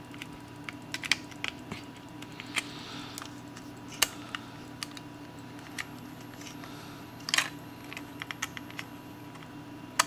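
Irregular small plastic clicks and taps as the parts of a Logitech M570 trackball's housing and ball cup are handled and fitted together, with a louder click about four seconds in and a quick run of clicks about seven and a half seconds in.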